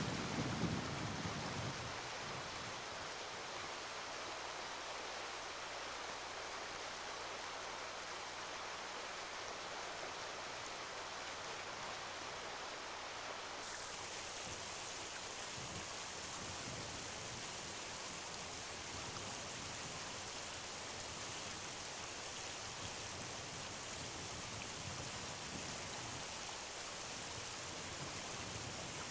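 Steady rush of a river's flowing current. A gust of wind buffets the microphone with a low rumble in the first second or two, then fades.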